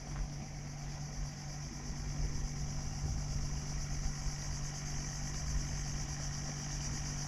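A boat engine running steadily with an even low hum, over a constant high-pitched insect drone.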